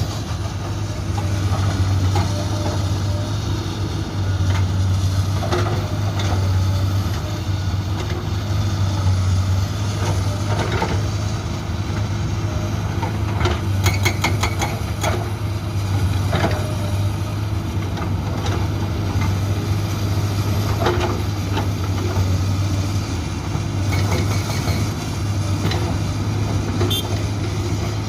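Komatsu PC200-8 excavator's six-cylinder diesel engine running steadily with the hydraulic breaker not firing. Occasional metallic knocks and clanks come through, with a brief cluster of them around the middle.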